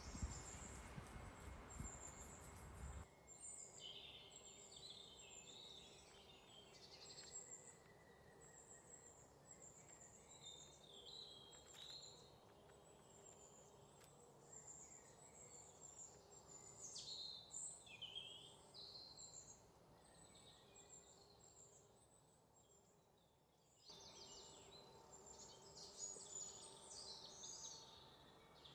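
Faint outdoor background with small birds chirping and twittering on and off throughout. A low rustling noise fills the first three seconds.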